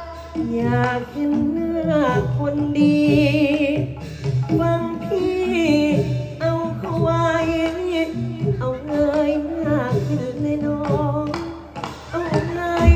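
A single voice singing a Thai likay song, its long held notes wavering with vibrato, over instrumental accompaniment.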